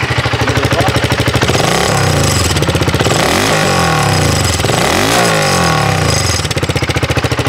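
BSA Gold Star 650 motorcycle's 652 cc single-cylinder engine running at idle with a steady thump, blipped up in revs three times in the middle and falling back to idle near the end.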